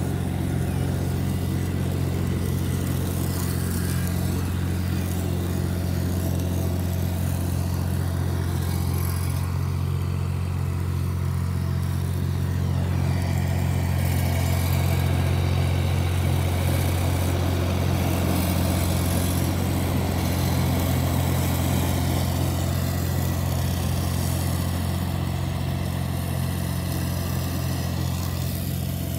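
Yanmar diesel compact tractor engine running steadily while mowing grass with its rear mower deck, growing a little louder midway through.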